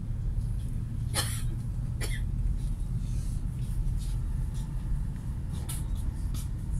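Steady low rumble inside a commuter train carriage, with two short sharp noises about a second apart a second or so in and a few fainter ones later.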